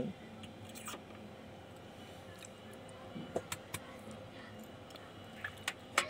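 A few faint, scattered clicks and taps over a low steady hum: multimeter test leads and probes being handled and brought to the circuit board for a voltage check.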